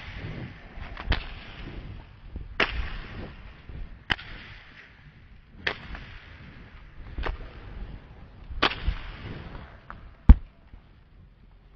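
Jump rope slapping a hard gym floor during side swings, a sharp slap about every second and a half, with the loudest slap near the end.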